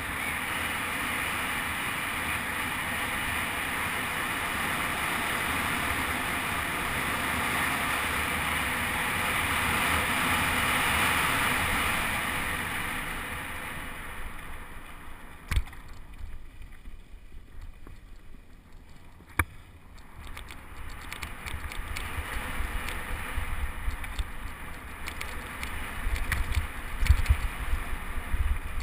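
Wind rushing over a helmet-mounted camera while riding a mountain bike on a dirt trail. The rush fades about halfway through, leaving tyre noise and two sharp clicks, then bumps and rattles of the bike over rough ground build toward the end.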